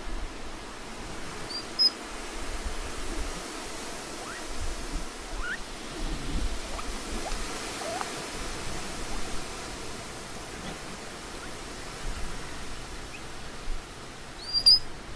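Steady outdoor hiss with a few faint, short rising squeaks in the middle and two brief high chirps, one about two seconds in and a louder one near the end.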